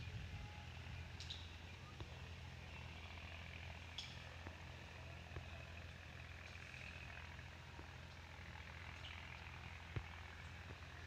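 Small single-cylinder stationary engine running steadily at a well, belted to a water pump, a low even hum. A few faint clicks, the sharpest near the end.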